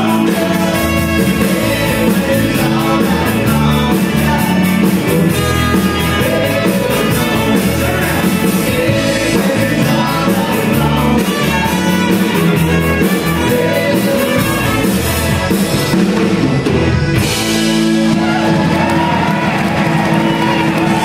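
Live Tex-Mex country band playing, with button accordion, electric guitar, bass, drums and trumpet, and a man singing into a microphone.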